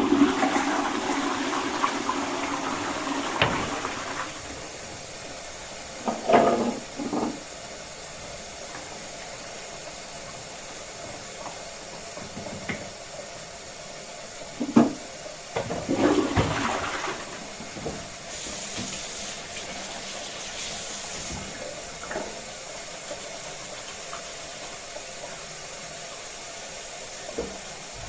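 Toilet flushing: a loud rush of water that dies down after about four seconds into the steady hiss of the cistern refilling, broken by a few brief louder sounds around six and fifteen seconds in.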